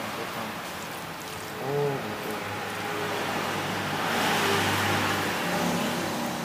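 A motor vehicle going past on the street, its engine noise swelling to a peak about four to five seconds in and then easing off.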